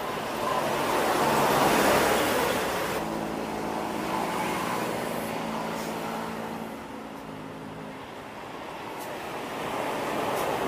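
Road traffic passing: one vehicle swells past about two seconds in, then a steadier engine hum from another vehicle, and another vehicle passes near the end.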